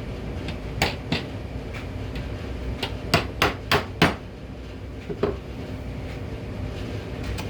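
Wood chisel being struck to chop out an angled mortise: two blows, then a quick run of five about a third of a second apart, then single blows.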